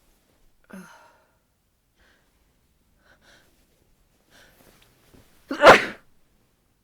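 A person's sneeze: a few faint catching breaths build up, then one loud sneeze about five and a half seconds in.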